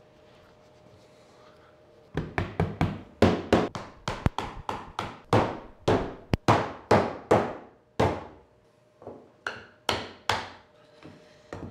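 Mallet driving wooden wedges against boards to lock them down on a CNC spoilboard. A rapid run of sharp strikes begins about two seconds in and goes on at roughly three a second, pauses briefly near eight seconds, then a few more blows follow.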